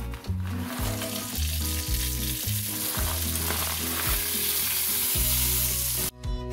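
Frozen diced onions sizzling as they land in melted butter and chicken drippings in a hot enamelled cast-iron Dutch oven, then stirred with a wooden spoon. The sizzle builds about a second in and cuts off suddenly near the end.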